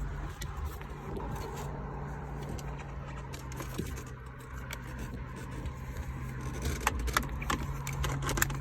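Scattered light clicks and scrapes of a 7mm socket and tools being handled and fitted onto a dash bolt, with more clicks near the end, over a steady low hum.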